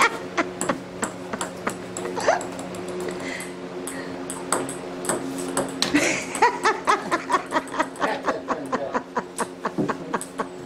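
Table tennis rally: a celluloid ping-pong ball clicking off paddles and the table, scattered at first, then a quick steady run of hits in the second half. A steady low hum runs underneath.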